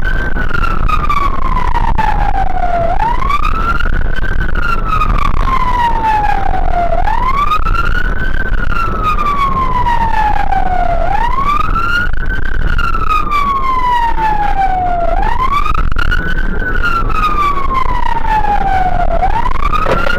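Fire engine's siren on a wail, its pitch climbing quickly and then sliding slowly back down, repeating about every four seconds. The truck's engine and road rumble run underneath.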